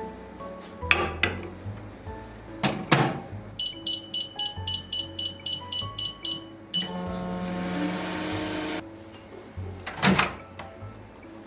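Microwave oven: about a dozen quick high beeps from the keypad, then the oven hums for about two seconds. A few sharp knocks come before and after, over background music.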